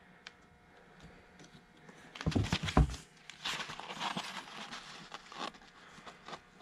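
Pages of an old hardback book being opened and leafed through, paper rustling, after a few loud handling thumps about two seconds in.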